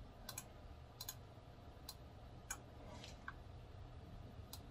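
Computer keyboard and mouse clicking: about eight sharp, sparse clicks, the first four in two quick pairs, over a low steady hum.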